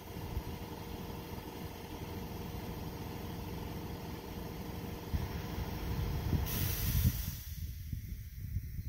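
A steady low machine hum. About six and a half seconds in, a sharp hiss of escaping air lasts about a second, and after it the hum thins to a low rumble.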